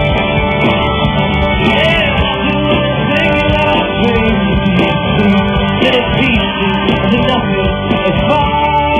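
A rock band playing live, with guitars, drums and a singing voice.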